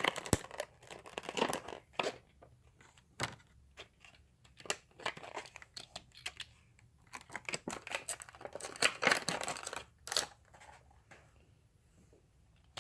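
A toy car's plastic blister pack being opened by hand: the blister is peeled and pulled off its cardboard backing, with irregular crinkling and tearing sounds and a few sharp clicks.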